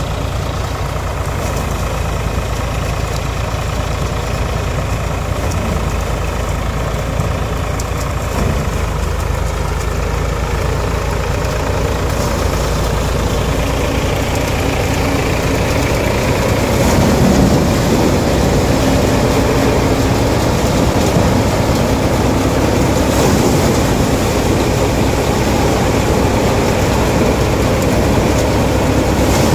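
An Eicher tractor's diesel engine running steadily under load, belt-driving a Harnam paddy thresher at work. The drone grows somewhat louder a little past halfway.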